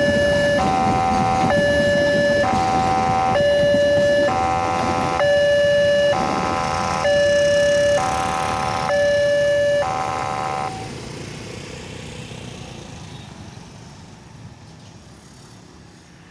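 Indonesian railway level-crossing warning siren sounding a hoarse, buzzy two-tone alternation, switching pitch about once a second, then stopping about eleven seconds in. A low rumble fades away after it.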